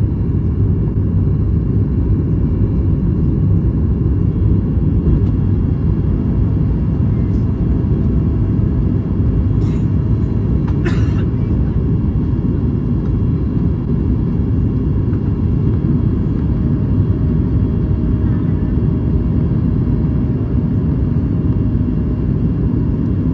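Steady low roar of engine and airflow noise inside the cabin of a Boeing 737 MAX 8 airliner, with a couple of brief clicks about ten and eleven seconds in.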